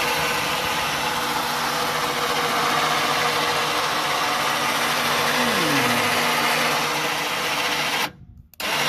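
A motor running steadily, with one tone gliding down in pitch about halfway through; it cuts off suddenly near the end, then comes back briefly.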